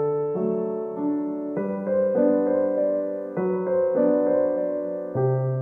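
Background music: soft keyboard chords, held and changing every second or two.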